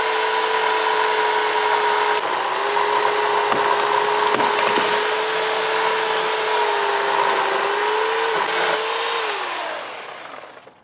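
Harbor Freight Portland 14-inch electric chainsaw running and cutting through a fallen pecan limb: a steady motor whine with the chain rasping through the wood. Near the end the motor winds down, its whine falling in pitch and fading away.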